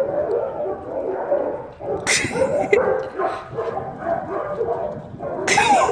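A young dog whining and yipping over and over while held in a sit-stay waiting for its toy, with two louder, harsher bursts, one about two seconds in and one near the end.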